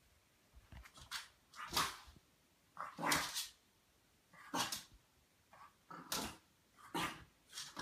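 French Bulldog puppy barking: a string of short, sharp barks, roughly one a second.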